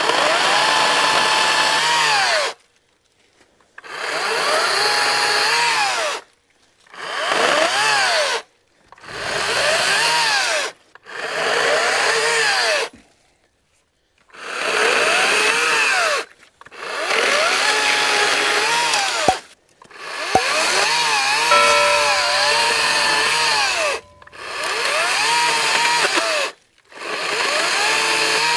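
Echo DCS-5000 56V battery chainsaw cutting small dead black locust branches in about ten short bursts, each lasting a second or two up to four seconds. The motor pitch dips as the chain bites into the wood and climbs back as it cuts through, and the saw goes silent between cuts.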